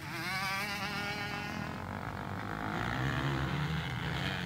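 Motocross dirt bike engine revving as the bike passes close by, its pitch wavering up and down over the first couple of seconds. After that a lower, steadier engine drone from bikes further off on the track.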